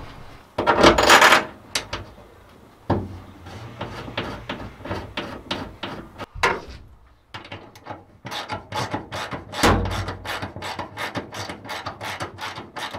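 A steel bolt and washer scrape and clatter on the aluminium floor of a metal utility chest as they are fitted into a hole, with a loud scrape near the start. From about eight seconds in comes an even run of quick ratchet-wrench clicks, about four or five a second, as the bolt is turned down.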